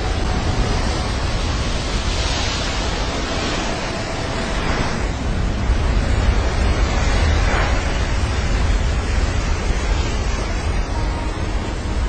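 A huge ocean wave breaking, a steady rush of whitewater with wind buffeting the microphone, swelling louder a few times.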